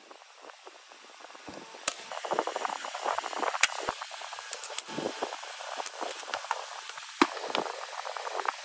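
Hand tools scraping and clinking on a rusted, cast-iron saw arbor shaft and its pulleys, with a few sharp metal clicks, the loudest about 7 seconds in.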